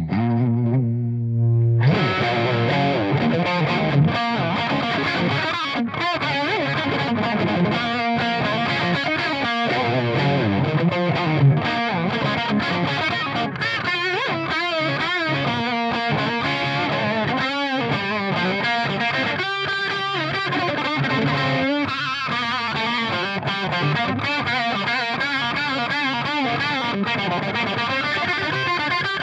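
Les Paul electric guitar played straight into a distorted 100-watt Marshall tube amp head with no effects: a held chord, then from about two seconds in, continuous driven rock riffing.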